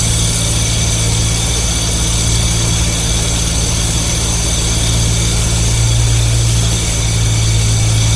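Construction machinery running steadily: a loud, continuous low engine drone with a thin steady whine above it.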